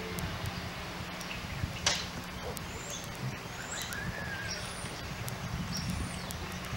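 Scattered short, high bird chirps over steady outdoor background noise, with a sharp click about two seconds in.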